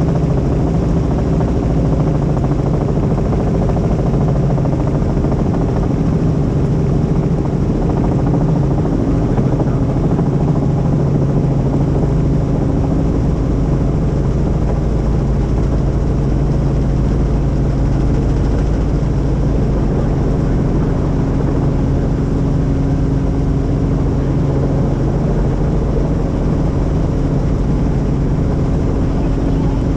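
Helicopter in flight: the steady drone of its rotor and engine, with a constant low hum.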